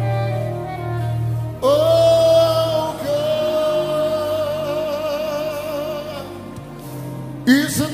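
Live gospel worship music: a singer sings "Oh God", holding one long note with vibrato that starts about a second and a half in, over sustained instrumental accompaniment. A new sung phrase enters near the end.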